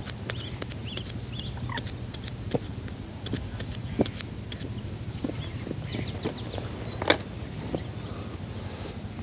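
Small irregular clicks and taps from a baiting needle being pushed through a packed solid PVA bag and from handling it, two of them louder, with a few bird chirps in the background.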